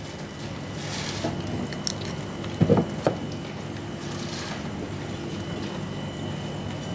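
A kitchen knife cutting and scraping through a grouper's head and collar on a plastic cutting board, with two sharp knocks about three seconds in, over a steady background hum.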